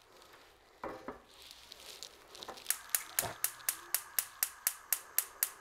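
Westinghouse gas cooktop's spark igniter ticking rapidly, about four clicks a second, while the burner knob is held turned to light the burner under a pot. There is a clunk about a second in as the pot is set down on the grate.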